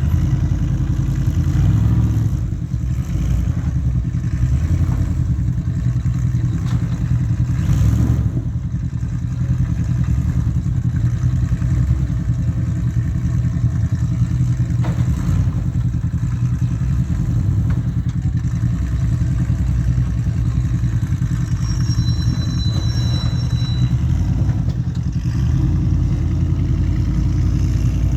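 Ultra4 off-road race car's engine running and revving under load as it crawls up a rock climb, with a steady low rumble. Sharp knocks at about 8 and 15 seconds, with clatter from the chassis on the rocks.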